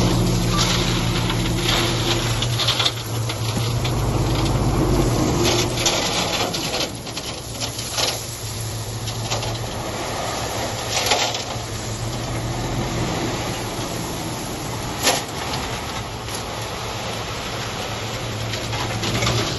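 Heavy construction machine's diesel engine running steadily, louder for the first few seconds and then easing off, with a few sharp knocks.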